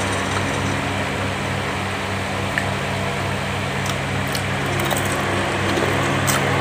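Steady electric hum of a room fan's motor with a low throb about four times a second. Over it come a few faint crisp clicks from chewing fried chicken.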